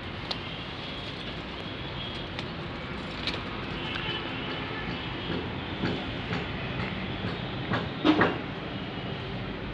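Steady outdoor background rumble with scattered light knocks and clicks, and a louder double knock about eight seconds in.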